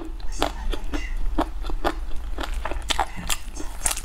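Close-miked chewing and crunching of sauce-glazed fried chicken: a quick string of crisp crunches, a few each second.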